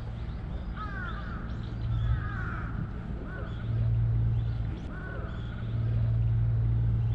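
Crows cawing several times in short calls, over a low steady hum that swells up twice, about midway and again near the end.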